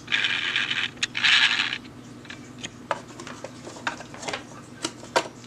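Plastic housing of an old Rival electric can opener being handled and turned over in the hands: two short scraping rubs near the start, then scattered light clicks and taps.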